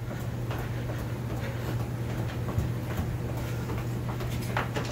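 Soft, irregular taps and shuffles of shoes rolling a soccer ball back and forth between the feet on carpet, over a steady low hum.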